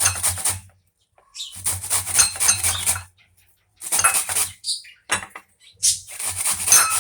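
A kitchen knife cutting up a raw white turnip, with clinks of the knife against a dish. The sound comes in about five short bursts with pauses between them.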